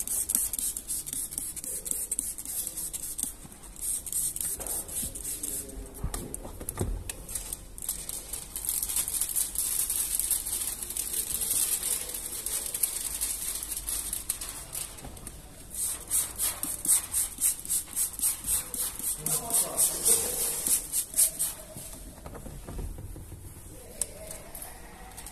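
Trigger spray bottle squirting liquid onto a car's side window glass to wet it for window-tint film, in runs of quick squirts about three a second with pauses between runs.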